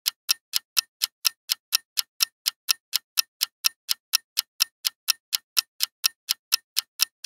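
Countdown-timer clock-ticking sound effect: short, even ticks at about four a second.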